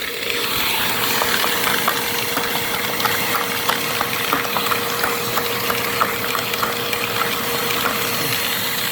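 Dirt Devil Powermax Pet vacuum cleaner running, a steady motor whine over a rushing hiss, with many small clicks and rattles as a broken soldering iron is jabbed into it.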